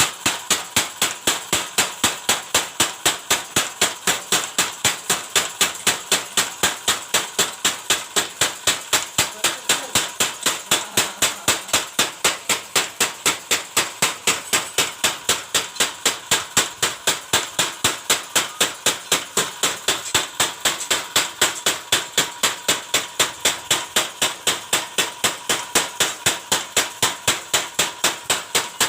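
Homemade mechanical power hammer, built from scrap parts, striking over and over in a steady, even rhythm of about three to four blows a second.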